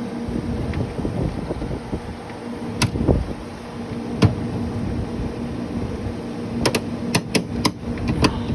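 A steady mechanical hum, with sharp clicks and knocks now and then and a quick run of them near the end.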